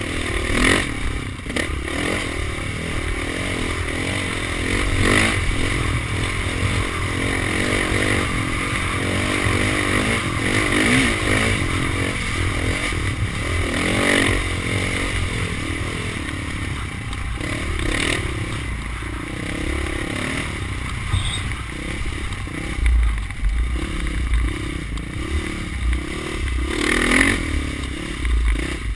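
Dirt bike engine running under way, its pitch rising and falling with the throttle, over a steady low wind rumble on the handlebar-mounted camera. Several sharp knocks and rattles from the bike going over bumps.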